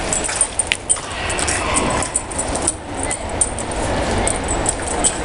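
Puppies moving about and playing on a bare concrete floor, with scuffles and several sharp clicks over the steady background din of a large hall.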